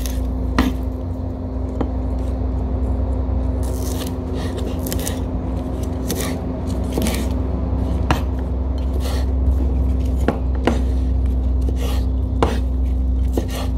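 Kitchen knife cutting through spring onion stalks on a wooden cutting board: irregular short knocks of the blade on the board, roughly one a second, with a steady low hum underneath.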